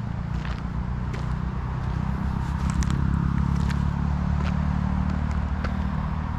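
Footsteps crunching on gritty old tarmac, a step about every second, over a steady low rumble of road traffic.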